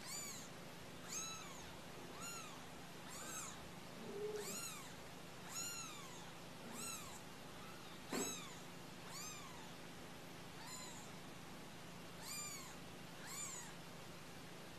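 Young kittens mewing over and over, about a dozen thin, high calls roughly a second apart, each rising and falling in pitch. A brief knock comes about eight seconds in.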